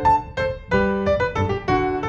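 Background piano music: notes and chords struck several times a second, each ringing and fading.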